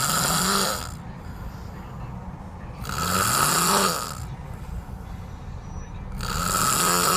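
A man snoring in slow, regular breaths: three snores about three and a half seconds apart, each lasting over a second and rising then falling in pitch.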